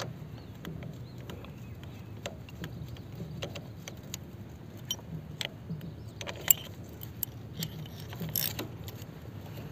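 Scattered metallic clicks and clinks of a socket wrench tightening a motorcycle's oil drain bolt, with one sharper clink about six and a half seconds in.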